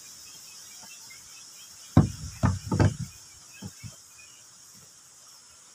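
Several dull knocks and clunks of a Makita 9527NB angle grinder's body being handled and set against a wooden table, bunched together about two seconds in with two lighter taps a second later. A steady high hiss runs underneath.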